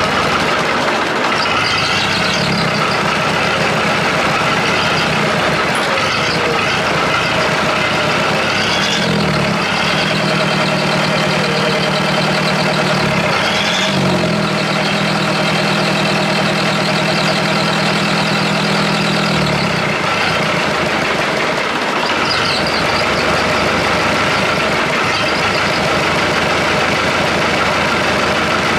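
Perkins four-cylinder diesel engine of a Chamberlain R1250 tractor crane running, newly started after standing for years. Its engine speed rises and falls several times in the first two-thirds, then settles to a steady run.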